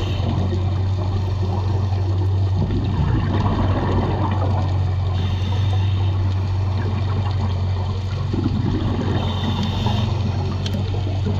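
Underwater sound heard through a diving camera's housing: a steady low hum under an even rushing water noise, with a few faint clicks near the end.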